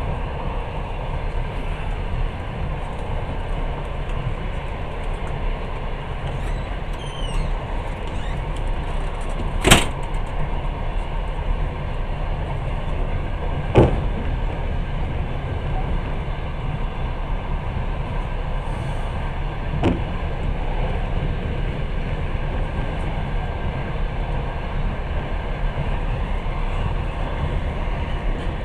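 Passenger train running, a steady rumble of wheels on rails heard from inside the carriage, with three sharp knocks spaced several seconds apart.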